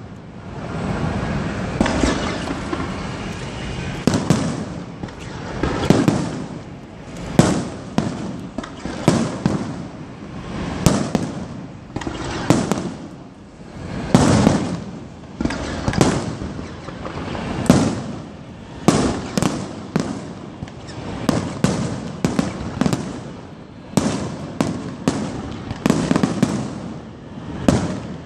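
Fireworks display: aerial shells bursting in the sky one after another, a sharp bang every second or two with a low rumble between them.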